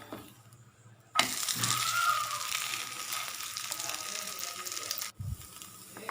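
Egg and wheat-flour dosa sizzling in oil in a pan on low heat, freshly turned over to cook its second side. After a quiet first second the sizzle starts suddenly and runs on, with a short break near the end.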